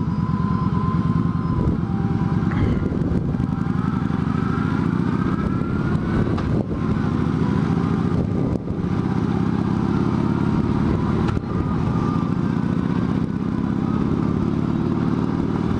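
Motorcycle engine running steadily under way, at an even pitch and level.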